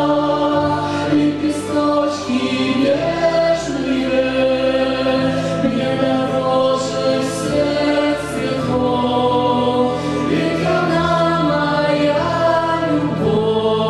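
A woman and a man singing a slow Orthodox spiritual song together into microphones, in long held notes over a sustained low accompaniment that changes chord every few seconds.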